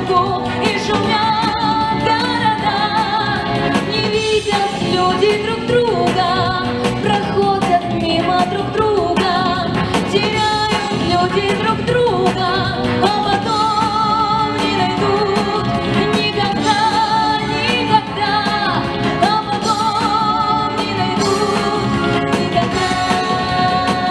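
Pop song: a woman singing with vibrato over an instrumental backing track.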